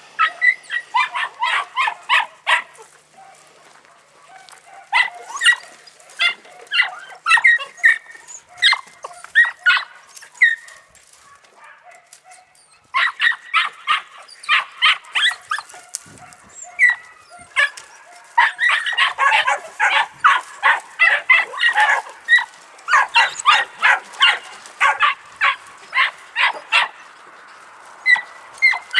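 Podenco puppies barking in runs of rapid, high-pitched yaps, several a second, with short lulls about three seconds in and again around eleven seconds in.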